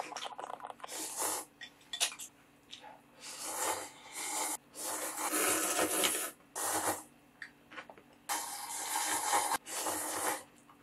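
A person slurping ramen noodles, close up, in a series of long, noisy slurps, each lasting up to about a second and a half, with short pauses between.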